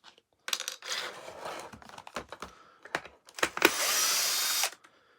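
Clicks, rattling and scraping of hard plastic as a wheel on a vacuum cleaner's floor head is levered off. About three and a half seconds in comes a steady, loud hiss lasting just over a second that stops suddenly.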